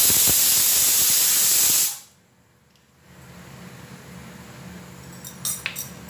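Pressure cooker whistling on the gas stove: a loud steam hiss as the cooker vents pressure while cooking soaked white peas, cutting off sharply about two seconds in. A few light clinks come near the end.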